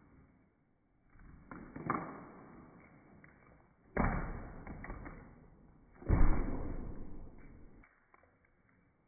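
Full plastic water bottles thudding as they are juggled by hand. There are three thuds about two seconds apart, each with a lingering tail, and the last is the loudest.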